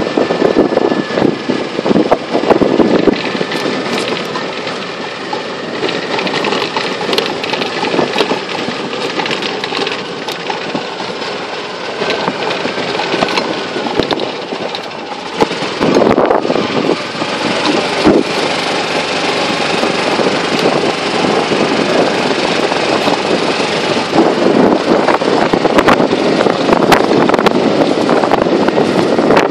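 Golf cart driving along, its running noise steady with frequent knocks and rattles as it goes over the ground.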